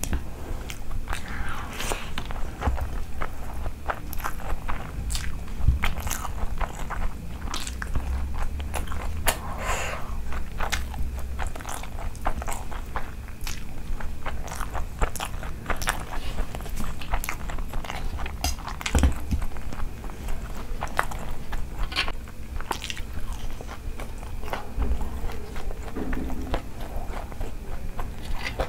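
Close-miked eating: chewing and biting on handfuls of rice and curry, with many small sharp mouth clicks and smacks coming irregularly.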